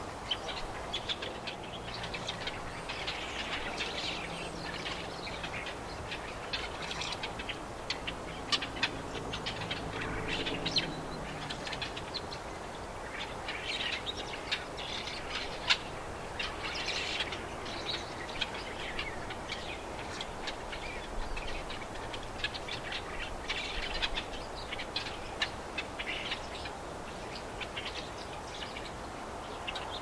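Many small birds chirping and calling at once in quick, short notes, from a mixed flock of sparrows and blackbirds feeding on the ground. A low, steady engine-like hum sits underneath for about the first twelve seconds, then fades.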